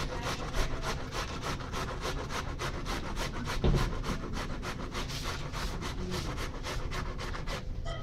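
Food being grated by hand on a grater: a quick, even rhythm of rasping strokes that stops just before the end, with one louder knock a little past the middle.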